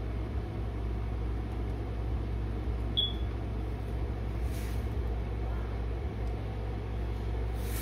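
Steady low rumble with a single short high chirp about three seconds in.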